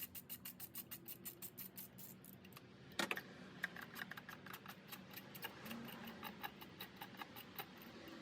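Ratchet wrench clicking in quick, even strokes, about five clicks a second, as a spark plug is backed out; one louder knock about three seconds in, then the clicking goes on more unevenly.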